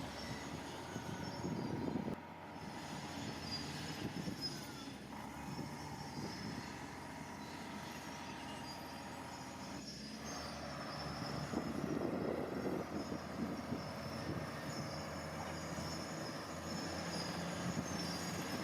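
Heavy earthmoving machine working: diesel engine running under a dense clatter of metal clanks and squeals, getting louder about two-thirds of the way through.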